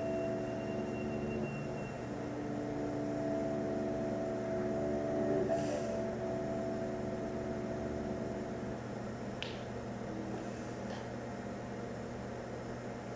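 A low, steady drone of several held tones over a constant hum, the notes starting and stopping at different times. A few faint clicks come about nine and eleven seconds in.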